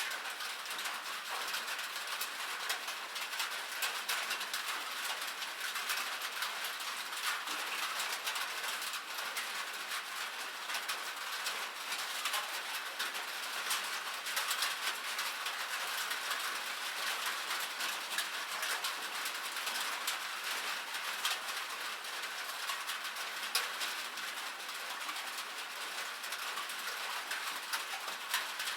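Rain pattering on a cabin roof: a steady, dense patter of countless small drop ticks with no let-up.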